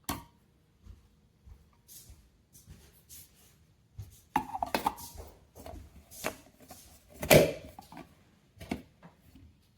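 An electric coffee grinder and its removable stainless steel bowl being handled: scattered clicks and knocks, a short rattling cluster a little after four seconds, and the loudest knock about seven seconds in. The grinder's motor is not running.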